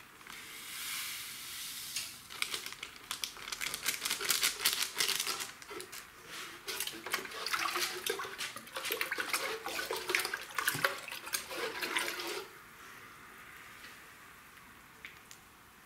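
Water splashing and sloshing into a plastic watering can, ending abruptly about twelve seconds in.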